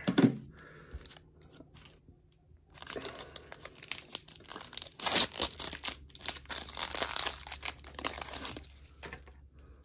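A foil Skybox Metal Universe hockey card pack being torn open and crinkled as the cards are slid out of the wrapper, the crackling starting about three seconds in and fading near the end.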